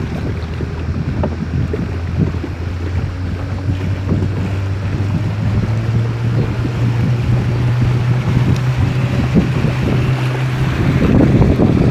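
A river boat's engine running steadily, its pitch rising about halfway through and dropping again near the end, with wind buffeting the microphone.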